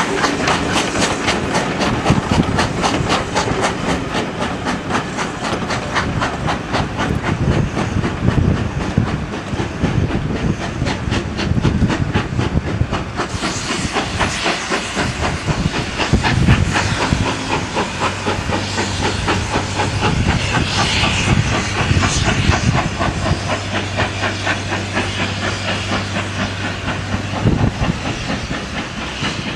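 Steam locomotive 41241, an LMS Ivatt Class 2MT tank engine, running with a rapid, even beat. About halfway through, a loud hiss of steam joins in, and a low steady hum runs under it for a while near the end.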